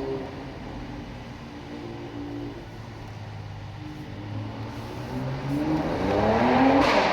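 Mercedes-AMG C43 coupe's twin-turbo V6 exhaust, running at a low, steady note, then climbing in pitch and loudness from about five seconds in to a loud peak near the end, echoing off the walls of an underground car park.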